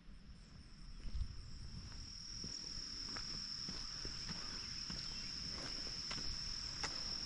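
Insects trilling in one steady, unbroken high-pitched drone, with a few faint clicks and a low rumble beneath.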